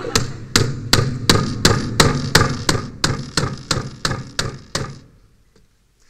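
Claw hammer driving a steel nail through the lid of a closed laptop: about fourteen quick, even blows, roughly three a second, stopping about five seconds in.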